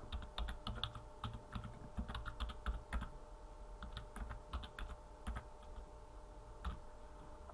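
Typing on a computer keyboard: a quick run of keystrokes for the first few seconds, then a few scattered key presses.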